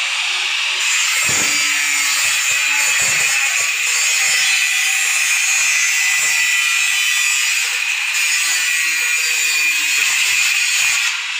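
Angle grinder with a cut-off disc cutting through a roll-formed black-coil steel shutter strip. A steady, high grinding whine that stops at the very end.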